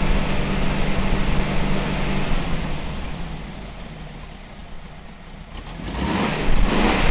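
Volkswagen Karmann Ghia TC's air-cooled flat-four engine running with a steady low note that fades over the first few seconds. It grows louder again about six seconds in with a rush of noise.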